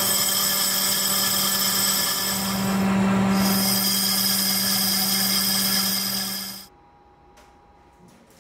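A machine running loud and steady, a hum under a high whine, that stops abruptly about six and a half seconds in, leaving only faint background sound.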